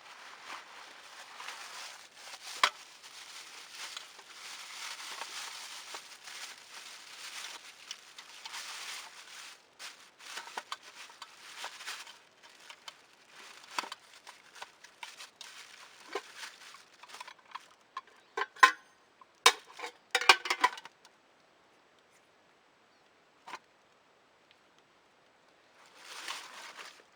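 Rustling and crinkling with scattered clicks, then a quick run of sharp cracks about nineteen to twenty-one seconds in, a few seconds of near quiet, and a short burst of rustling near the end.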